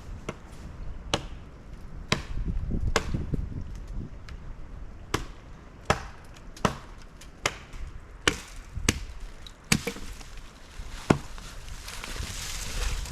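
Wood being chopped with an axe: about a dozen sharp, separate strikes, roughly one a second with short pauses between.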